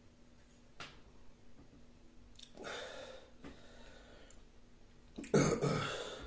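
A man breathes out noisily twice, about halfway through and again near the end, the second louder; a fork clicks faintly on a plate near the start.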